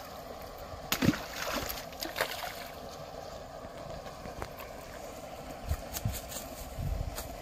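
A hooked rohu splashing and thrashing at the water's surface, with a sharp loud splash about a second in and a noisy spell of splashing just after. Soft low knocks near the end as the fish is lifted and handled.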